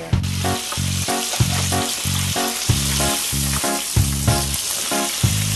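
Floured chicken drumsticks frying in a countertop deep fryer's hot oil: a dense steady sizzle that cuts in suddenly at the start. Background music with a steady beat plays throughout.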